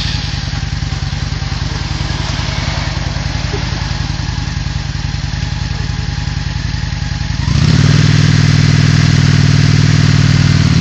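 Honda cruiser motorcycle engine idling steadily just after being started. About seven and a half seconds in, the throttle is opened and the engine runs louder at higher revs, held steady, as a learner rider gets ready to pull away.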